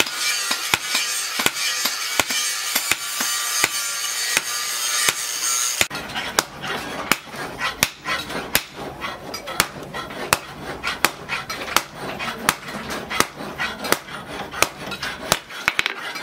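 Hand hammer striking red-hot bearing steel on a steel post anvil in a steady rhythm, about three ringing blows a second, as the knife blank is forged to shape. Background music plays under the first six seconds, then stops.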